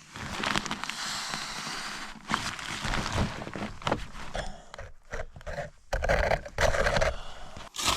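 Digging and scraping in packed snow: a series of uneven scrapes and crunches, the loudest about six to seven seconds in.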